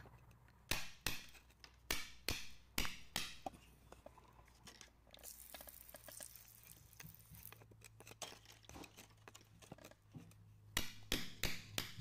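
A metal pick tapping and scraping at hard clay and rock around an embedded blue stone, in sharp, irregular clinks. A brief hiss of water washes over the rock in the middle, then the taps pick up again near the end.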